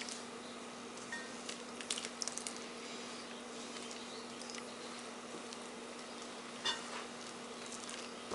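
Soft scattered scrapes and taps of a spatula against a mixing bowl and a plate as a wet batter is poured in and folded into dry ingredients, with one sharper tap about two thirds of the way through. A faint steady hum runs underneath.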